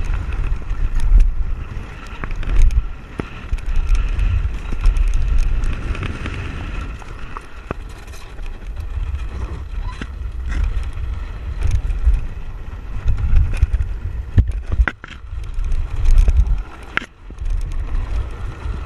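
Wind buffeting the microphone in gusts over the rattle of a land yacht rolling fast across sand, with scattered sharp clicks and knocks from the frame and rigging, thickest about three-quarters of the way through.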